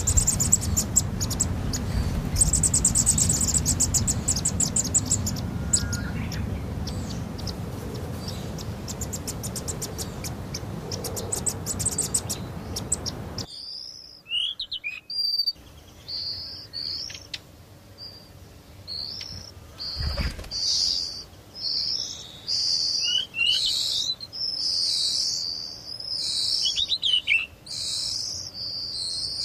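Insects trilling in rapid high pulses over a steady rushing noise. About halfway this cuts to a quieter scene of small songbirds chirping in short, high calls that come thicker toward the end, with one low thump in between.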